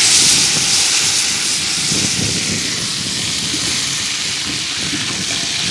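Fresh mint leaves frying in hot cooking oil: a loud, steady sizzling hiss.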